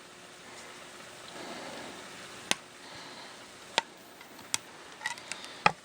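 A few sharp metallic clicks and taps from handling a rotary engine's rear iron and tools, spaced out and then a quick cluster near the end with the loudest last, over a soft rustle.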